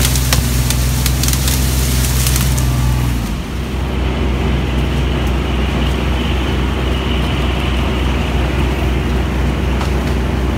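Kubota's engine running steadily while tall dry reeds and grass crackle and snap against the machine. After about three seconds the crackling stops and the engine runs on at a slightly different tone.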